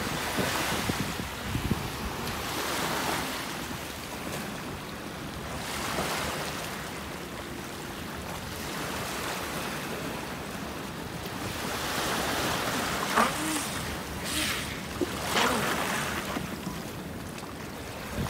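Small waves washing and lapping at the shore's edge, with a few sharper splashes near the end, over wind buffeting the microphone.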